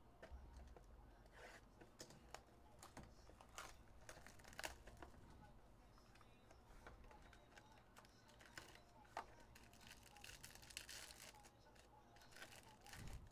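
Faint handling of a 2024 Panini Origins football card box and pack: the pack wrapper crinkling and tearing as it is opened by hand, with scattered light clicks and taps. There is a longer stretch of tearing and rustling about ten to eleven seconds in.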